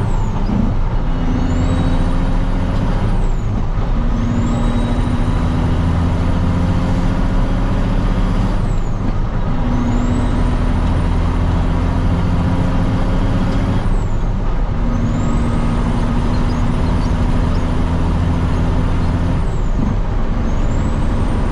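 Truck engine pulling a trailer and accelerating up through the gears, shifting five times. The engine note climbs steadily in each gear and drops at each shift. A high whistle rises with each gear and falls away at each shift.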